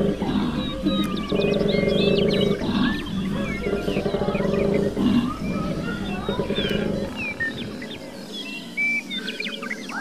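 Koala bellowing: low, pulsed phrases of about a second and a half, repeated with short gaps, stopping about seven seconds in. Small birds chirp and twitter above it throughout.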